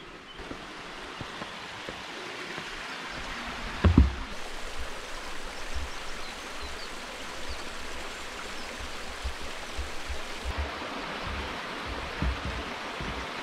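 Small rocky hill stream rushing steadily as it tumbles over stones in a little waterfall, with one loud thump about four seconds in and a few soft low knocks later on.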